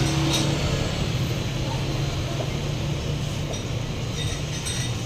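A steady low mechanical drone, easing off slightly over the few seconds, with a few light clicks near the start and near the end.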